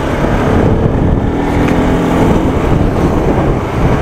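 Motorcycle ridden at road speed: the engine runs steadily under a loud rush of wind and road noise.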